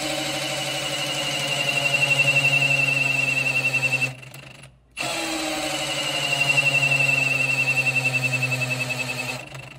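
Cordless drill spinning the oil pump of a Chevrolet ZZ454 big-block through a priming tool in the distributor slot, run twice with a brief stop about four seconds in. The whine sags slightly in pitch during each run as the drill bogs down under load, the sign that oil has come up through the engine.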